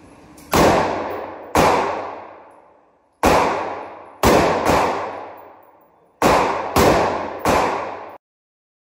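Eight single rifle shots from a Smith & Wesson M&P15 AR-platform rifle, fired one at a time at uneven intervals, with two pairs close together. Each shot echoes and fades off the walls of an indoor range. The sound stops suddenly a little before the end.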